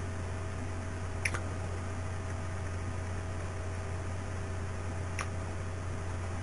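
Steady low electrical hum and hiss of the recording setup, with two faint short clicks, about a second in and again about five seconds in, typical of a computer mouse being clicked.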